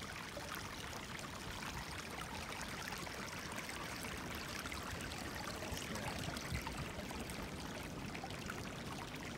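Spring water trickling steadily in a shallow run over stones and wet leaves.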